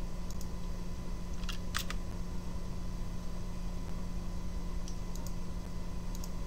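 A few short computer mouse clicks, some single and some in quick pairs, the loudest pair about a second and a half in, over a steady low hum.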